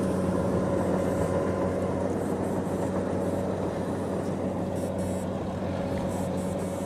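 A steady machine drone, a low hum with fainter higher tones above it, unchanged throughout.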